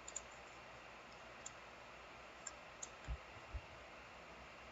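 A few faint, scattered clicks from a computer mouse or keyboard, with a few soft low thumps about three seconds in, over a quiet room hiss.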